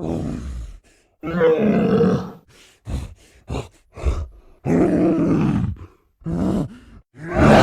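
Giant gorilla creature vocal sound effects: a string of separate calls, two longer ones of about a second each and several short ones in between, with another building near the end.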